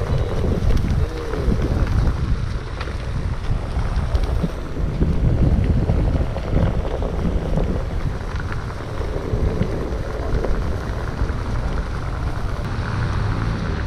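Wind buffeting the microphone of a rider moving on a Onewheel, a loud low rumble that swells and eases.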